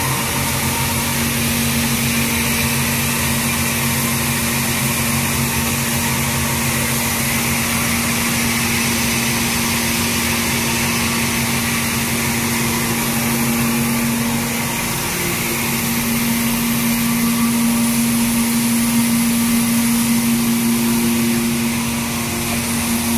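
Mini rice mill plant machinery running, with paddy moving inside a grain cleaning or separating machine: a steady mechanical hum carrying one constant low tone over an even hiss.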